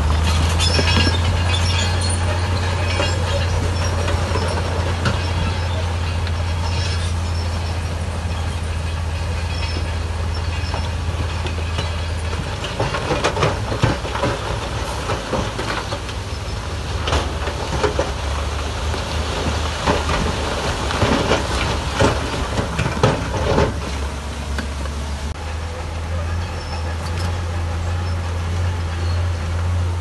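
Heavy earthmoving machine's diesel engine running with a steady low drone, with a run of metallic clanks and knocks through the middle as it works.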